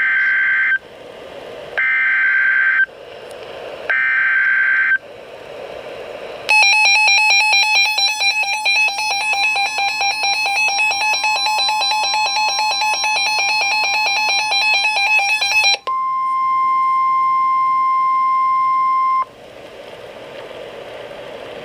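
Emergency Alert System activation on NOAA Weather Radio for a severe thunderstorm warning. Three short screeching bursts of SAME digital header data, then about nine seconds of a receiver's rapid electronic alarm beeping, then a steady 1050 Hz warning alarm tone for about three seconds, ending in faint radio hiss.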